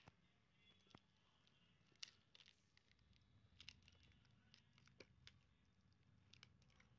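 Faint, scattered clicks and crinkles of fingers pressing and smoothing tape over a laptop screen's display-cable connector, against near silence.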